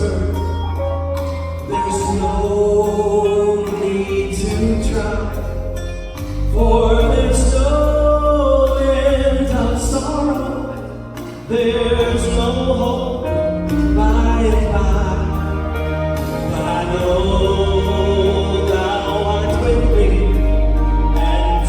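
Southern gospel vocal group singing with instrumental accompaniment and a strong bass line.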